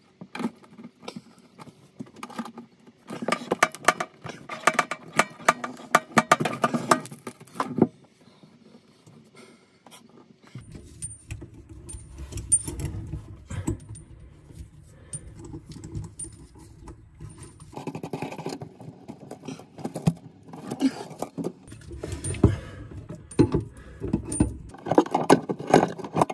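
A flick mixer tap's braided steel hoses and metal fittings clinking, rattling and scraping as they are handled, the tap pushed into its bench-top hole and fastened from under the sink. A dense run of rattling comes a few seconds in, then duller knocking and rubbing with more clinks.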